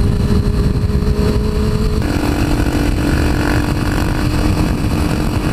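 A Suzuki GSX-R 600 inline-four sport bike running at road speed, heard from the rider's seat under heavy wind noise on the microphone. Its steady engine note steps down in pitch suddenly about two seconds in.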